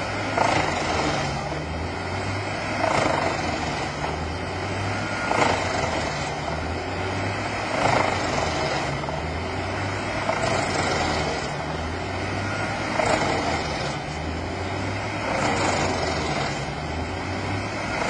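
Large trailer-mounted wood chipper running under load with a tractor log crane working beside it: a steady low engine drone with a surge of louder chipping noise about every two and a half seconds.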